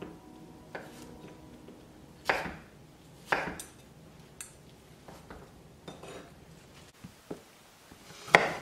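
Chef's knife cutting through raw fat onto a wooden cutting board: a series of separate, irregular knocks of the blade against the board, about one a second.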